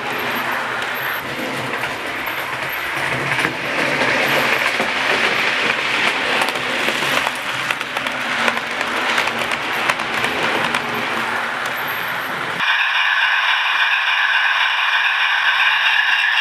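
00 gauge model trains running on track, a continuous clattering rattle of small wheels and many fine clicks. About twelve seconds in it cuts off suddenly and is replaced by a steady, thin hum made of several tones.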